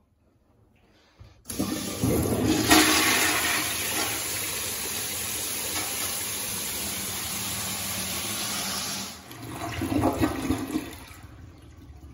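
Gerber rear-spud toilet flushed by its flushometer valve. It starts suddenly about a second and a half in and rushes steadily for about seven seconds, with a second surge near the end before it dies away.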